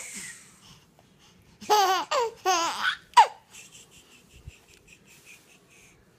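Baby laughing: a run of loud, high, wavering laughs about two seconds in, lasting a second and a half, followed by faint, quick breathy pulses.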